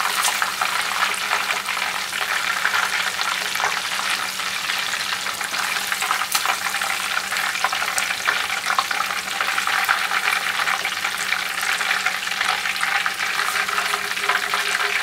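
Chicken karaage deep-frying in hot oil in a cast-iron pot: a steady, dense crackle and sizzle as the coated pieces are turned with long wooden chopsticks. The oil is on raised heat for the final crisping fry.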